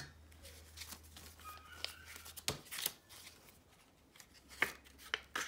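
Paper banknotes and a paper envelope rustling and crinkling in a few short, scattered handling sounds as bills are slid into a cash envelope.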